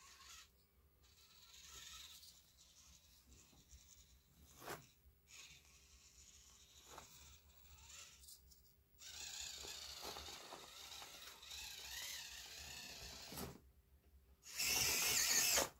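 Axial SCX24 1/24-scale RC crawler's small electric motor and gears whining faintly, with tyres crunching and scraping over sand and rock and scattered small clicks. A louder, harsher burst of about a second comes near the end as it climbs.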